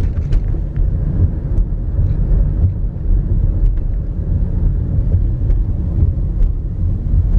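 Steady low rumble of a car's engine and tyres heard from inside the cabin while driving slowly, with a few faint clicks.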